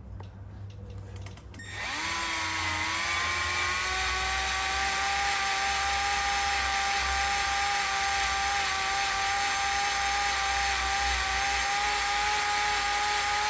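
Power drill starting up under two seconds in, its motor whine rising briefly and then holding a steady pitch, as a 1/8-inch left-hand cobalt bit drills out a broken bolt. A few faint clicks come before it starts.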